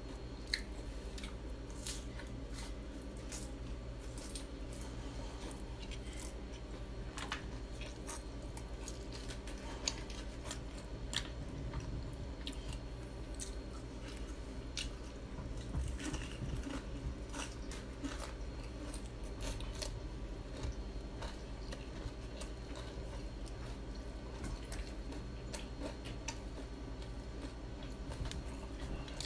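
Close-miked chewing of crispy fried chicken: scattered sharp crackles of the crunchy coating along with wet chewing, over a low steady hum.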